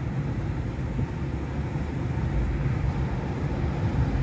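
Car driving along, heard from inside the cabin: steady low engine and tyre noise.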